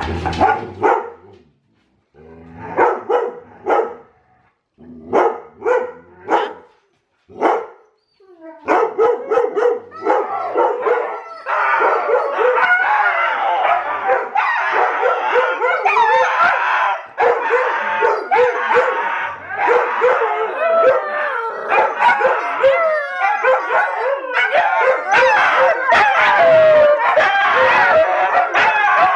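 Siberian huskies and an Alaskan Malamute puppy howling together. For the first several seconds there are short separate woo-barks with gaps between them. About nine seconds in, several voices join into a continuous, wavering group howl.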